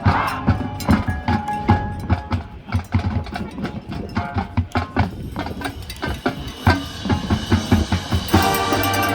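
Marching band percussion playing a fast, dense rhythmic passage of drum and wood-block-like strikes with short pitched mallet notes. Near the end the full band, brass included, comes in with sustained chords.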